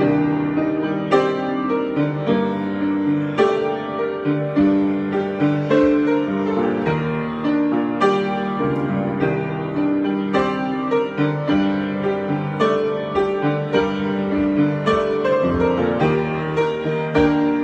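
Solo piano improvisation: chords and melody notes struck one after another and left to ring, at an unhurried pace.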